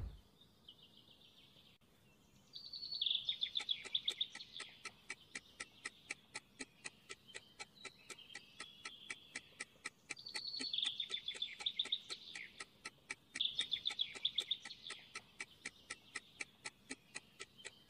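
Countdown-timer ticking, about three even ticks a second, with bursts of trilling birdsong laid over it a few times.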